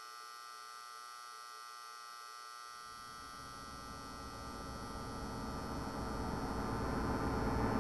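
Steady humming drone of many held tones, slowly growing louder, with a low rumble coming in about three seconds in.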